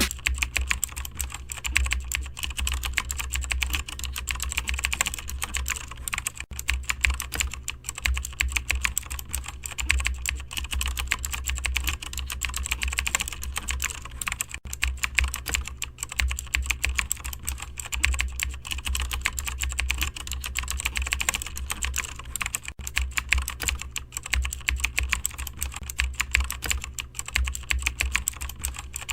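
Continuous fast typing on a computer keyboard: a dense, unbroken patter of key clicks. A steady low hum runs underneath.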